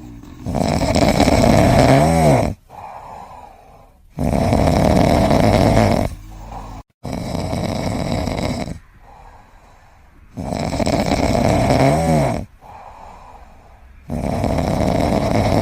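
A pet snoring: five loud snores of about two seconds each, with quieter breathing between them.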